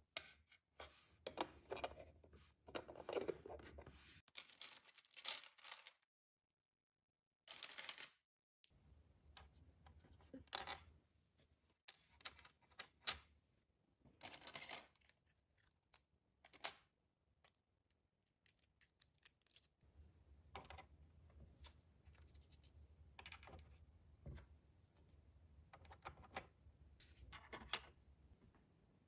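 Faint, irregular clicks, taps and rustles of small plastic miniature pieces and their packaging being handled and set in place.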